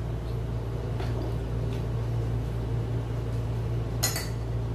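A metal spoon clinks against a small bowl once, sharply, about four seconds in, after a fainter tap about a second in. Under it runs a steady low hum.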